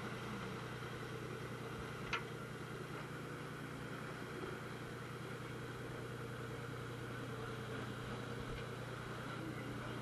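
A fishing boat's engine running at a steady idle-like hum, heard on board over a steady hiss of wind and water. A single sharp click about two seconds in.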